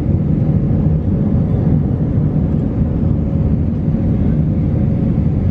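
Steady low rumble of a vehicle in motion, even and unchanging, with a faint steady hum above it.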